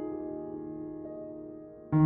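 Soft background piano music, held notes slowly fading, with a louder chord coming in at the very end.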